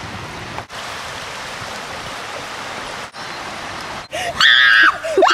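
Steady rush of flowing stream water. Near the end a person's voice cries out loudly.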